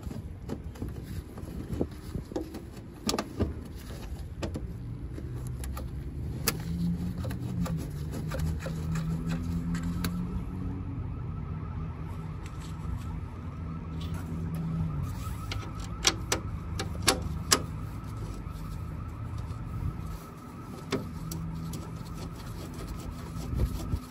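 An engine running steadily, its note lifting slightly for several seconds in the middle, with a few sharp clicks and knocks.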